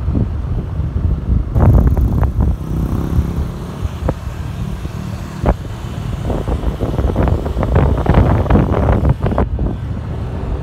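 Wind buffeting the microphone on a moving motorcycle, a gusty rumble over the motorcycle's engine, which comes through briefly as a steady pitched note about three seconds in.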